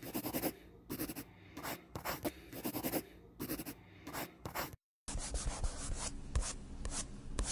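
Scribbling on paper: quick scratchy drawing strokes in irregular bursts, breaking off for a moment about five seconds in and then resuming.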